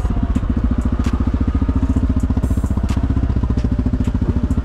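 Honda ATV's single-cylinder engine running slowly with a steady, even pulse, with a few sharp clanks over it; the rider says the rear axles are clanking.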